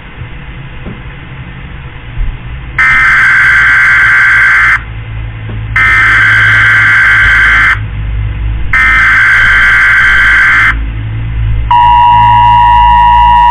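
Emergency Alert System SAME header for a flash flood warning: three identical bursts of shrill warbling data tones, each about two seconds long with a second's pause between, after a few seconds of hiss. About twelve seconds in, the steady attention signal tone starts.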